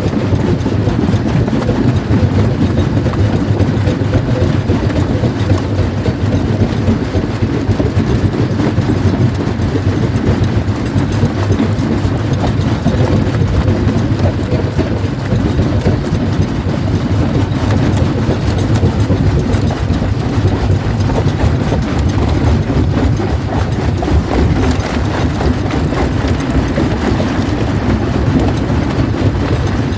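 Primary jaw crusher running loud and steady, with a dense clatter of rock cracking and grinding between its jaws.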